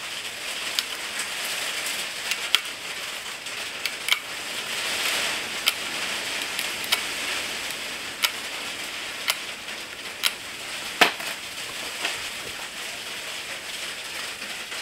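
Hand tools clicking and clinking on engine fittings while hoses and clamps are worked loose: sharp, irregular clicks about a second apart over a soft hiss.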